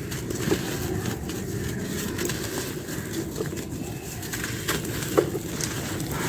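Dry crumbly material, such as sun-baked clay or soft stone, crunching and cracking as it is crushed, in a few sharp crackles (the loudest about five seconds in) over a steady low background.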